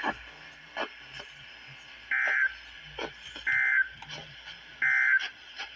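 Emergency Alert System end-of-message signal: three short, identical data bursts, each about a third of a second long, about a second apart, marking the end of the flash flood warning broadcast.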